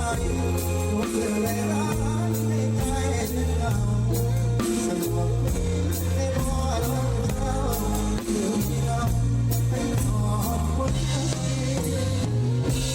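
Live band music, a Thai molam medley played on drum kit, bass and guitar with a steady beat.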